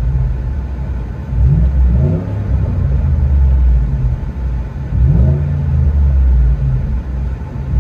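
2011 Ford F-150's 5.0L Coyote V8, breathing through a single exhaust with a resonator and a Flowmaster Outlaw muffler, revved in Park: a deep steady idle-to-mid-rpm note with a few rising rev blips, around 1.5 to 2 seconds in, about 5 seconds in and again at the very end. Heard from inside the cab.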